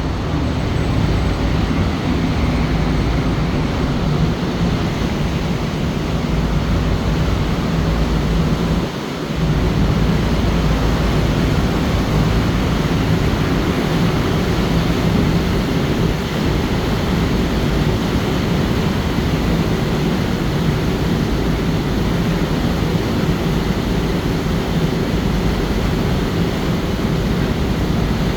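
Steady drone of a motor ship under way: a low engine hum mixed with an even rushing noise, briefly dipping about nine seconds in.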